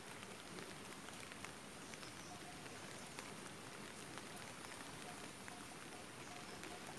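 Faint, steady patter of water drops on the stream surface, with scattered small ticks; a few faint short chirps come in over the second half.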